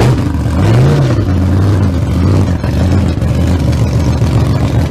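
An engine running loud at idle, revved once about a second in so its pitch rises and falls, then settling back to a steady pulsing idle.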